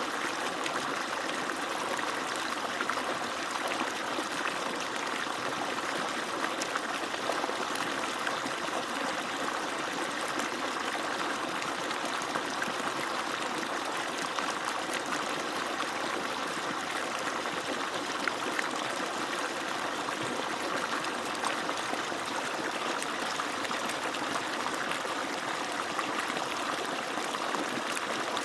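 Water pouring steadily from an agricultural irrigation pump's outlet and splashing as it runs, an even rushing that doesn't change.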